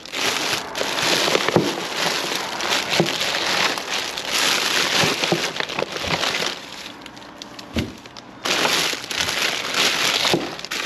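Plastic food packaging and flower sleeves crinkling and rustling as gloved hands rummage through a wheelie bin, with scattered light clicks and knocks. It goes quieter for a couple of seconds a little past halfway, then picks up again.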